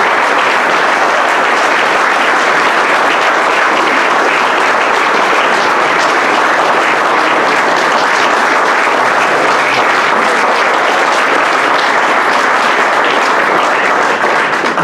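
Audience applauding steadily and loudly, stopping near the end.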